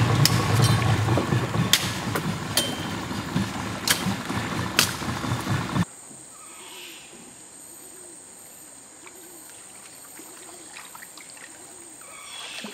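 Sharp knocks of a machete chopping branches, about five strikes, over a loud low rumble. About six seconds in, the sound cuts to quiet river ambience with a thin, steady high drone.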